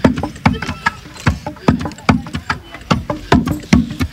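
Wooden pestles pounding in carved wooden mortars, with several pounders striking in an uneven, overlapping rhythm of dull thuds about three a second.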